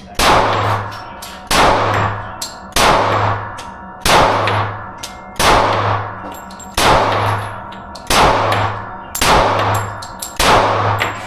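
Glock 30 Gen 4 pistol firing .45 ACP at a slow, even pace: nine single shots about one every 1.3 seconds, each followed by a ringing tail.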